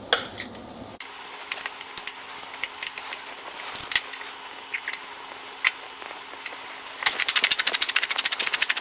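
Hand-turned spice mill grinding seasoning, a fast even run of about a dozen clicks a second near the end, with scattered light clicks and taps before it.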